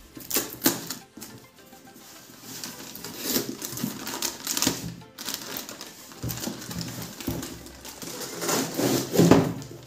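A cardboard box being opened by hand and a plastic-wrapped fan heater slid out of it: irregular scraping and tearing of cardboard, and rustling of the plastic bag, with sharp clicks near the start, over background music.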